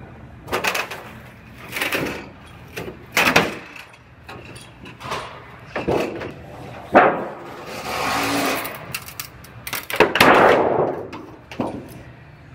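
Irregular metallic knocks and clanks of a car door's sheet-metal panels being handled on a stand, about nine in all, with a longer scraping noise about eight seconds in.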